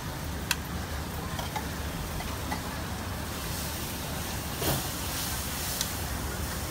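Squid tentacles sizzling on a hot flat-top griddle over a steady low rumble of street noise, with a few sharp clicks and a brief louder burst a little past halfway.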